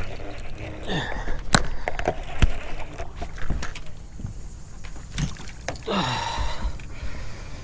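A hooked bass being fought and landed in an aluminium jon boat: sharp knocks on the boat about a second and a half and two and a half seconds in, and a short burst of splashing about six seconds in.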